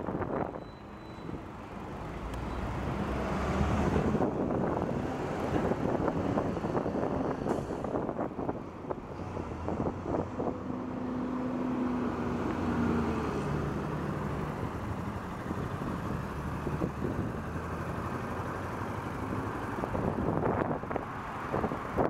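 Motor vehicle noise with wind buffeting the microphone. A few engine tones shift in pitch midway through.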